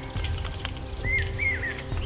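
Forest ambience: a steady high-pitched insect drone, with a bird's short three-note chirping phrase about a second in. A few light clicks from the branches being handled.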